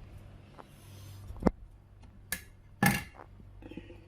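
Dishes handled on a kitchen counter: three sharp clinks or knocks, about a second and a half in and twice more near the end, the last the loudest, over a faint steady hum.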